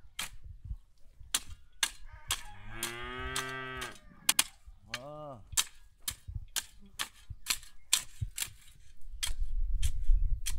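A cow mooing twice: one long, low call about two seconds in and a short call about five seconds in. Sharp clicks or knocks come about twice a second throughout, and a low rumble builds near the end.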